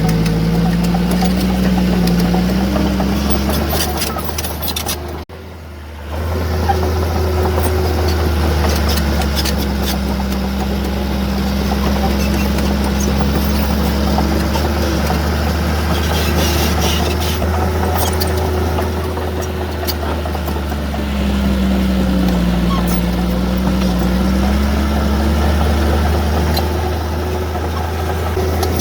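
Diesel engine of heavy earth-moving equipment running under load, its pitch slowly rising and falling as the machine works. The sound drops out briefly about five seconds in, then resumes.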